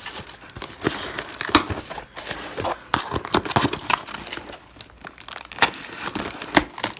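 Cardboard shipping box being pulled and torn open by hand, with irregular crackling, crinkling and tearing of the cardboard and packing.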